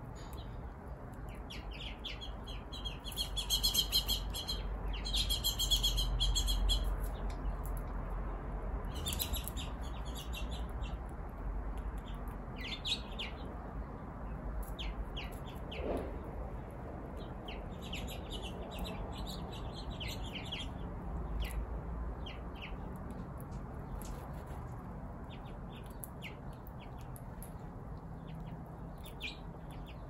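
Small wild songbirds chirping, with a run of rapid song about three to seven seconds in and scattered short chirps through the rest, over a low steady rumble.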